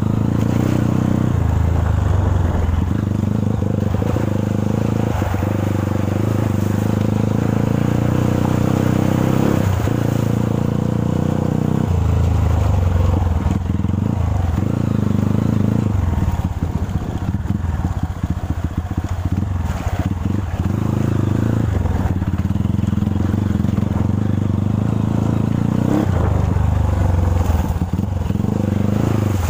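Dirt bike engine running as the bike rides along a rough trail, its note shifting several times with the throttle.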